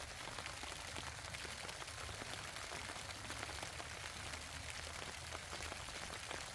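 Steady rain falling: a dense patter of fine drops over an even hiss.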